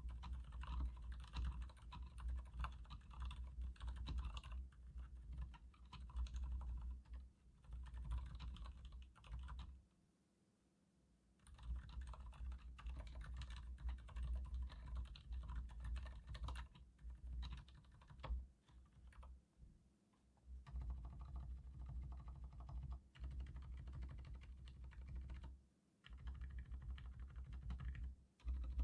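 Continuous typing on a Leopold FC900R mechanical keyboard with Cherry MX Silent Red switches: rapid keystrokes with a muted, dampened clack, stopping for a second or two about ten seconds in.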